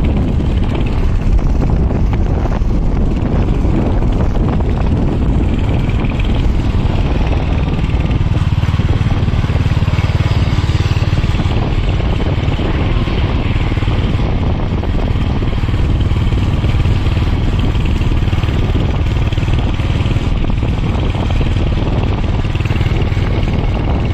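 A motor vehicle's engine running steadily with road noise, a low drone that grows heavier for a few seconds midway.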